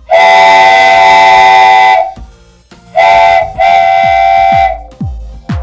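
Electronic intro music. A loud, sustained horn-like chord holds for about two seconds, then after a short gap it returns over deep kick drums that fall in pitch, starting a dance beat.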